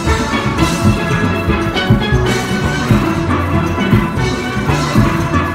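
A steel band playing together, the higher pans ringing out the melody over the deep notes of barrel-sized bass pans, with a steady rhythmic pulse.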